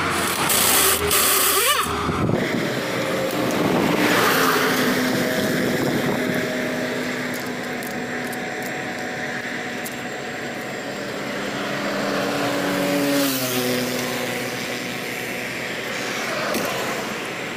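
A pneumatic impact wrench runs for about two seconds near the start, with a loud hiss and rattle. After that, highway traffic goes by: engine notes of passing vehicles slide slowly down in pitch.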